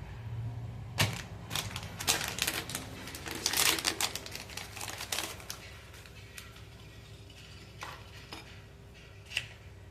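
Small metal engine parts clicking and clinking as they are handled during assembly of a Honda Biz 110 piston, wrist pin and rings. There is a quick run of clicks from about a second in to past five seconds, then a few scattered ones.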